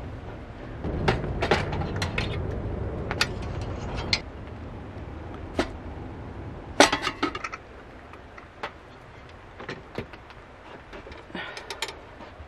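Metal hurricane oil lanterns being handled: scattered clinks and clicks from their wire frames, bails and globe levers, the sharpest about seven seconds in, followed by a few quick taps. A low rustling rumble sits under the clinks in the first few seconds.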